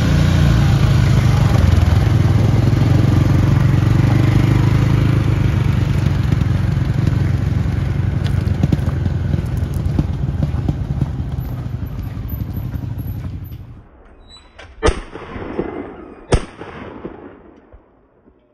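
Polaris Ranger side-by-side UTV engine running as the vehicle drives along a dirt trail, then cutting off abruptly. Then two sharp shotgun shots about a second and a half apart, each with a short ringing tail.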